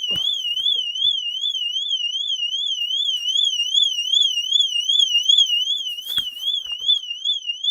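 2010 VW Golf's factory alarm siren sounding by itself with the car locked: a steady high warbling tone, about three warbles a second. This is the fault being traced; the diagnostic codes later pin it on the siren unit (alarm horn H12, no signal/no communication). A couple of brief knocks near the start and about six seconds in.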